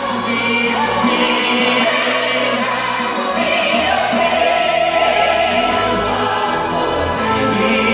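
Large choir singing held chords in a big, reverberant arena, heard from the audience.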